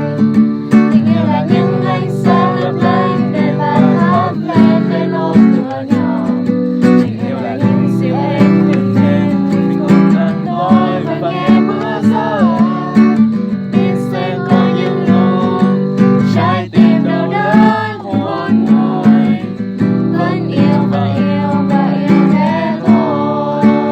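Music: an acoustic guitar strumming steady chords under a wavering melody line.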